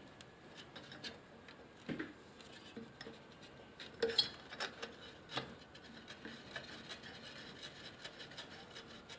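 Small clicks, knocks and rubbing of hands handling the wiring and parts inside an opened fog machine being put back together. The sharpest clicks come about four and five seconds in.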